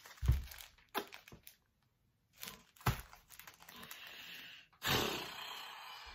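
Crinkly cross-stitch kit packaging being handled: irregular crinkles and crackles, a short pause, then a longer rustle about five seconds in.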